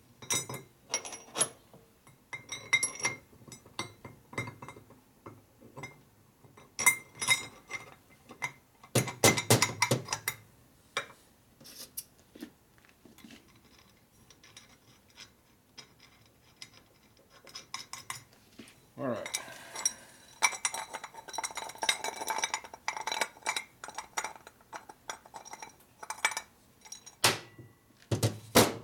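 Irregular metal clinks, taps and knocks from a Harley-Davidson Shovelhead rocker box being taken apart by hand: rocker arms, spacers and shims knocked loose and set down on the bench. A heavier knock comes about nine seconds in, and a short scraping slide about two-thirds of the way through.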